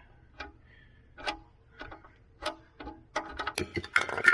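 Sharp metallic clicks of a wrench loosening the oil pan drain plug. The clicks come singly about every half second, then faster in the last second, with the loudest clinks near the end.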